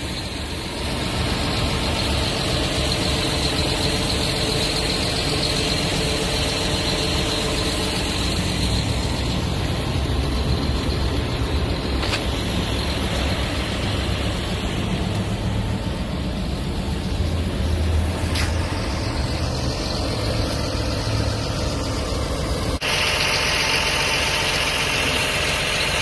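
John Deere 850K crawler dozer's diesel engine running steadily at idle. It grows louder and brighter near the end.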